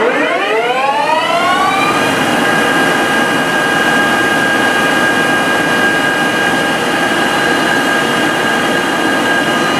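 Doosan S700 CNC lathe spindle spinning up with its chuck: a whine that rises in pitch over about the first two seconds, then holds steady at speed over a steady rush of noise.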